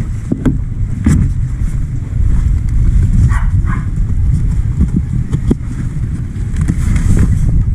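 Steady low rumble with a few sharp clicks and knocks as the plastic motorcycle delivery box is unlatched and its lid opened.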